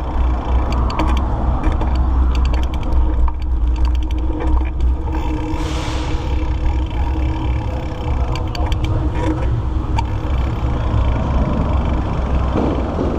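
Steady wind and road rumble from riding a Schwinn Ranger mountain bike, with scattered clicks and rattles from the bike and a brief hiss about six seconds in.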